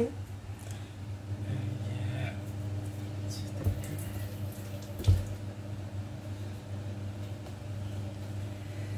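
Water running faintly from a kitchen tap over a steady low electrical hum, with two short knocks about four and five seconds in.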